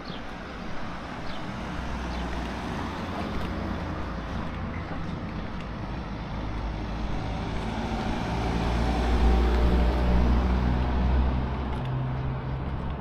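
Street traffic with a motor vehicle's engine running close by, growing louder to a peak about nine to eleven seconds in, then easing off.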